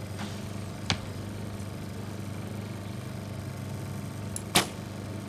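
Recurve bow shot: a sharp snap of the string about four and a half seconds in, over a steady low hum, with a single faint click about a second in.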